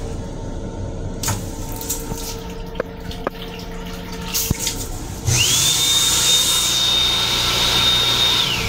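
Sensor faucet of an M7 railcar restroom sink running, with a few light clicks. About five seconds in, the built-in hand dryer starts: a loud rush of air with a high motor whine that rises quickly, holds steady for about three seconds, and winds down near the end.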